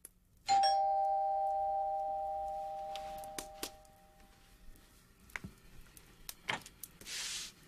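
Two-tone doorbell chime rings once about half a second in, its two notes sounding together and fading away over about four seconds. A few faint knocks follow, and there is a brief hiss near the end.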